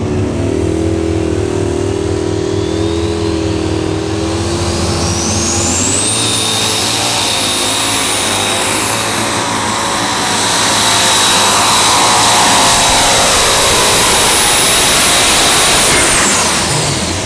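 Case IH unlimited super stock pulling tractor's turbocharged diesel engine running at the line, then going to full load as it pulls the sled. A high whine climbs over the first several seconds, then holds steady while the engine runs very loud. Near the end the whine falls away and the engine drops off as the pull ends.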